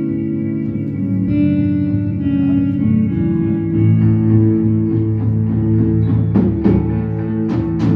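Live instrumental band playing: electric guitars holding sustained, effects-laden chords over bass guitar, with drum and cymbal hits growing stronger in the last few seconds.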